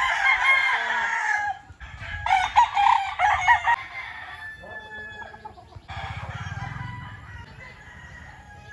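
Rooster crowing: a long crow that ends about a second and a half in, then a second, choppier call from about two seconds in, followed by quieter yard sound.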